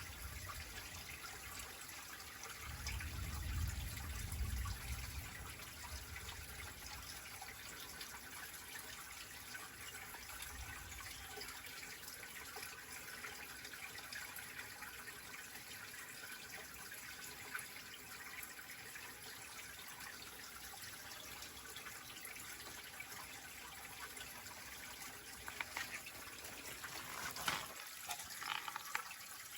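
Faint, steady trickle of stream water, with a brief low rumble a few seconds in and a few soft knocks near the end.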